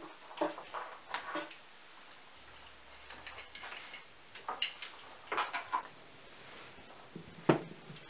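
Scattered light knocks, clicks and rustling of hand-handling: Christmas ornaments being taken down and laid into a fabric-lined storage case, with one louder knock near the end.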